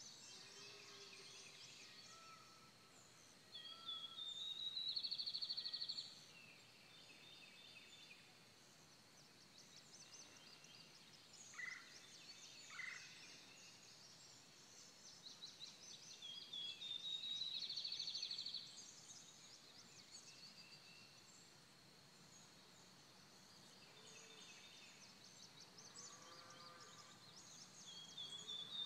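A songbird sings the same phrase three times, about every twelve seconds. Each phrase is a short run of rising notes that runs into a buzzy trill lasting a couple of seconds. Other birds chirp faintly over a quiet outdoor background.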